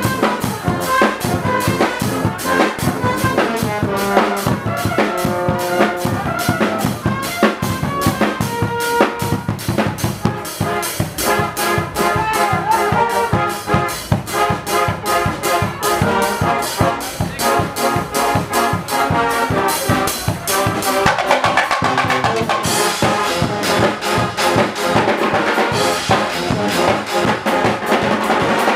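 A Swiss Guggenmusik carnival band playing live and loud: trumpets and trombones blare a tune over a bass drum and cymbals beating a steady, driving rhythm. The band gets brighter and fuller in the last third.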